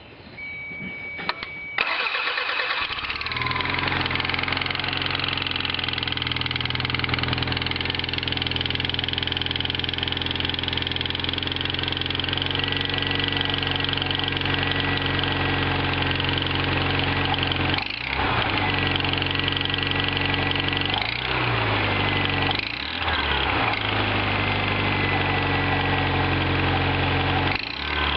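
Toyota MR2 Turbo's 3S-GTE turbocharged four-cylinder engine starting about two seconds in after a short steady tone, then idling steadily, with a few brief changes in engine speed in the second half. The clicking at idle is a sign the mechanic puts down to a warped exhaust manifold.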